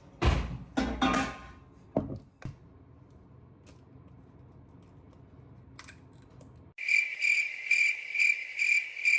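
A few knocks and clatters in the first two seconds, then a lull. From about seven seconds in, a cricket-chirping sound effect pulses evenly at about two to three chirps a second over otherwise dead-silent audio.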